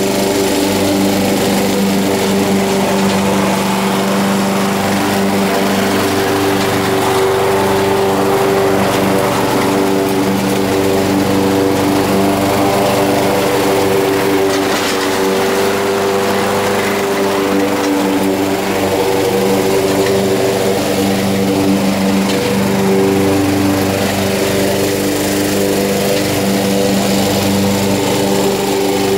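Honda HR194 push mower's engine running steadily under load as it mows grass cut as low as possible, a constant engine drone.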